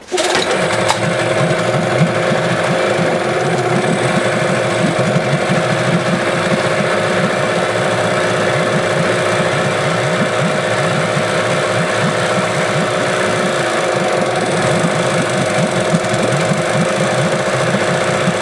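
Yamaha 8 hp outboard motor catching and running steadily with a rapid, even beat. It is a motor that will only keep running with some choke, which the mechanic puts down to either worn fuel-pump diaphragms, common on this model, or a dirty carburettor.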